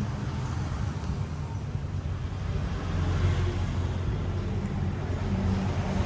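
A motor engine running with a steady low rumble, growing a little louder about halfway through.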